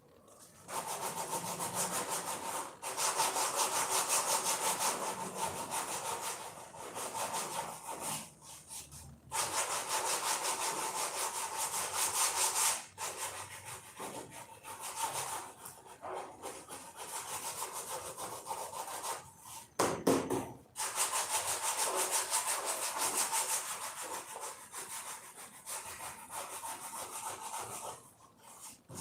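A hand tool rasping rapidly against the dashboard material in several long bouts of back-and-forth work, with short pauses between them.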